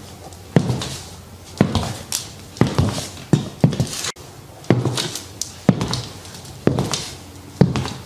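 Stiletto-heeled Gianmarco Lorenzi patent-leather pumps walking on a hard floor: sharp heel clicks at about one step a second, a few of them doubled.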